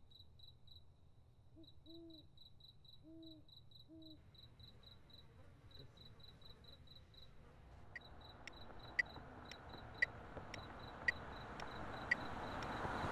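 Night ambience: crickets chirping in steady rapid pulses over a low rumble, with three short owl hoots about two to four seconds in. From about eight seconds, sharp clicks come about twice a second, the louder ones once a second, over hiss that grows toward the end.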